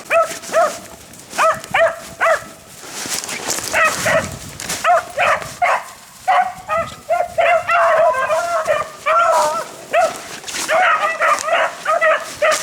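Several beagles baying on a rabbit's scent: a string of short, pitched barks and yips, overlapping thickest in the second half.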